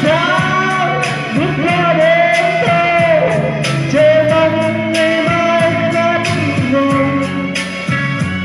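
Music: a slow ballad with long held, wavering melody notes over a steady accompaniment.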